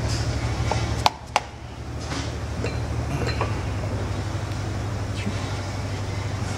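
A hammer tapping on the top bearing cap and shaft of a 1.5 HP Bridgeport milling-machine motor to free the cap: two sharp knocks about a second in, a quarter second apart, then a few faint clinks, over a steady low hum. The cap is stuck because it came up with the whole shaft, a sign the bottom bearing is not holding as it should.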